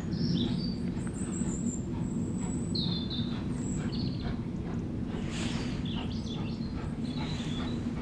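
Steady low rumble of a steam locomotive at a station, with small birds chirping several times over it.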